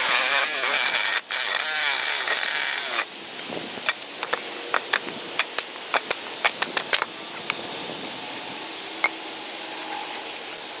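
Craftsman reciprocating saw cutting through a wooden 4x4 post, with a brief break about a second in, then stopping about three seconds in as the cut finishes. A string of light knocks and clicks follows.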